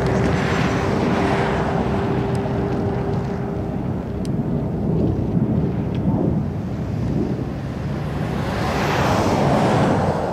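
Fairchild Republic A-10 Thunderbolt II's twin TF34 turbofan engines in flight, a steady jet rumble. A steady humming tone fades out a few seconds in, and the hiss swells near the start and again near the end.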